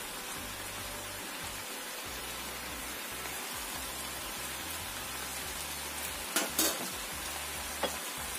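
Stir-fried noodles sizzling steadily in a wok, with a few short clicks near the end.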